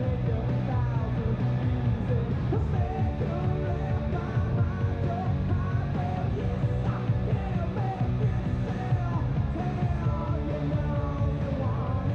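Rock music with a steady strong bass line and a singing voice, played at an even level.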